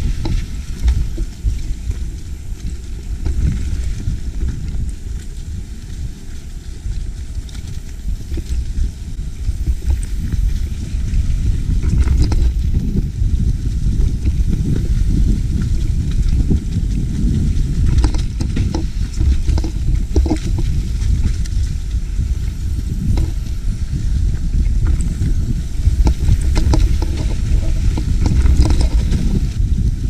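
Mountain bike rolling fast down a dirt forest trail: a steady low rumble of knobby tyres and wind on the camera microphone, with frequent knocks and rattles from the bike going over bumps.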